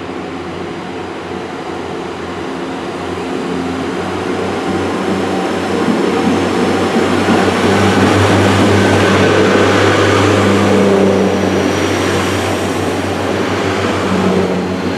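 Class 143 Pacer diesel multiple units pulling away from the platform, their underfloor diesel engines working under power with a steady engine note. The sound builds over the first several seconds, is loudest in the middle as the units go past, then eases slightly.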